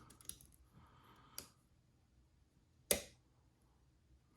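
Hook pick working the pin stack of an ABUS 72/40 padlock under tension: faint scraping, then two small clicks about a second and a half apart, the second sharper.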